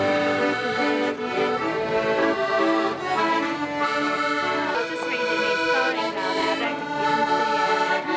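A street busker playing a tune on an accordion, a melody moving over held chords.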